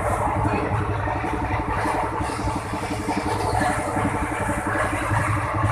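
A moving vehicle heard from inside its passenger cabin: steady engine and road noise with a rapid low pulsing.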